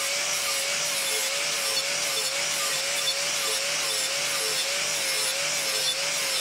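Angle grinder with a coarse-grit flap disc sharpening the edge of a steel lawnmower blade held in a vise: a steady motor whine that wavers slightly, over the hiss of the disc grinding metal.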